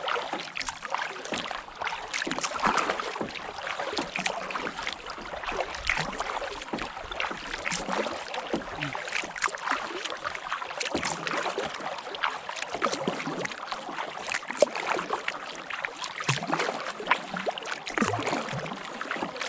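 Kayak paddling on a lake: paddle blades dipping and splashing in the water, a continuous run of small irregular splashes.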